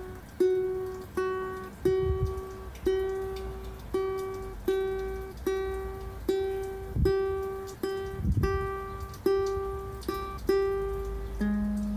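Ukulele string plucked one note at a time, about once or twice a second, each note ringing out and fading, as the instrument is tuned. Near the end a lower string is plucked instead.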